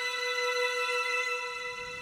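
Background music: one steady held note with its overtones, easing slightly in level near the end.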